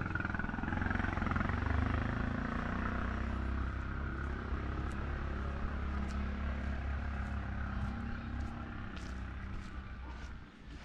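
A motor vehicle's engine running with a low, steady drone that drops away shortly before the end.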